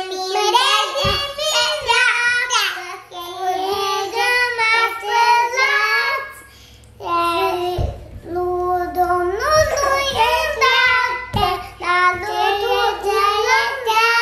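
Small children singing a Romanian children's song together in high voices, with a short break about halfway through.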